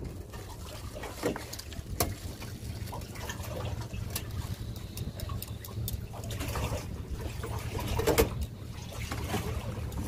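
Steady low rumble of the fishing boat's engine, with plastic bag crinkling and scattered clicks and knocks as krill bait is emptied into a metal chum box on the rail. The sharpest knock comes about eight seconds in.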